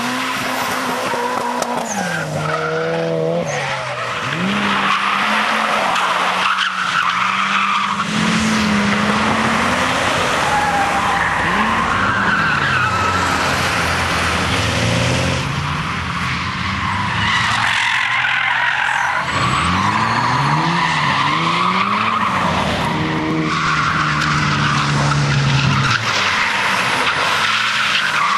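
Drift cars sliding through a corner one after another, tyres squealing and screeching while the engines rev up and down hard, the engine pitch repeatedly rising and dropping.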